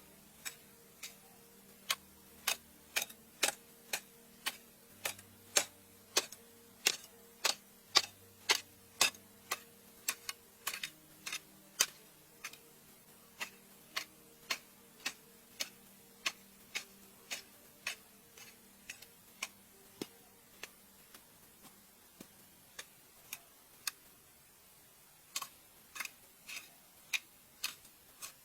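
A long run of sharp, light knocks, about two a second and unevenly spaced, like hand-tool strikes. They grow sparser after about eighteen seconds and pause briefly before resuming near the end.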